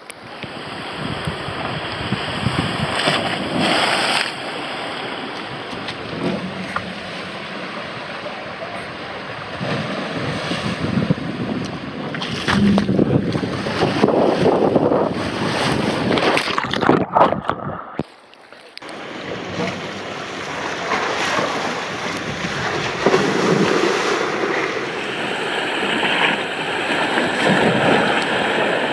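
Water rushing and splashing on a wide wave-shaped water slide, with wind buffeting the microphone. The sound drops away briefly about 18 seconds in, then returns, and near the end a rider splashes down into the pool.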